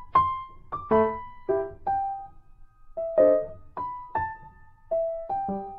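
Background piano music: a gentle melody of single notes, about two a second, each ringing out and fading.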